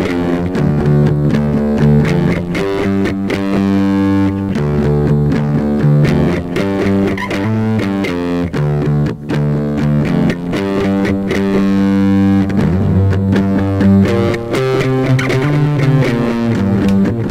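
Recorded band music led by guitar with bass, played through an Ibanez DM1000 digital delay to demonstrate its echo effect.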